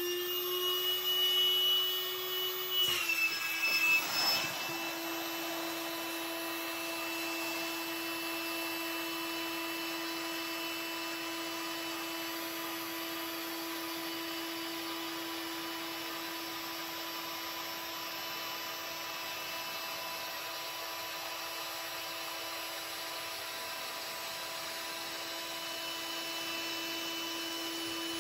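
Ryobi high-volume, low-pressure inflator running steadily, blowing air into an inflatable kayak's chamber through a valve adapter: a steady motor whine. About three seconds in its pitch drops slightly, with a couple of seconds of handling noise.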